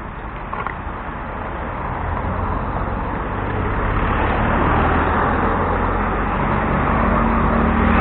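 Cars passing close by on a road, engine and tyre noise swelling over the first few seconds and staying loud, with a steady engine hum in the second half.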